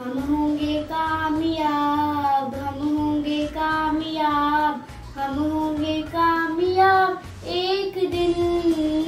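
A young girl singing a song, holding long notes one after another.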